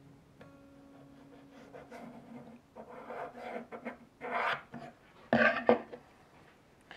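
Pencil scratching a line across a wooden guitar neck blank, drawn against a steel square, in a few short strokes about three to four and a half seconds in. A brief louder scrape follows about five seconds in as the square is shifted on the board.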